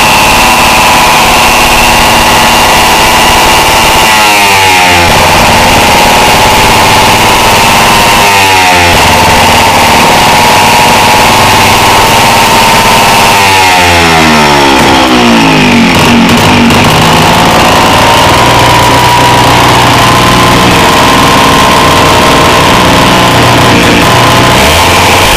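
Small single-cylinder air-cooled two-stroke water-pump engine running steadily, its speed changing three times: briefly about four and eight seconds in, and longer about fourteen seconds in.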